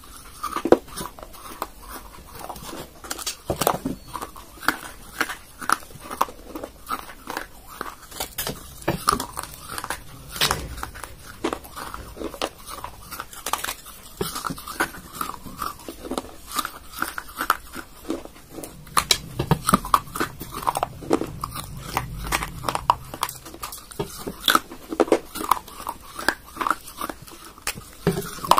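Crunching and chewing of a paste-coated baked clay pot being bitten into: many irregular sharp cracks, one after another, with quieter chewing between them.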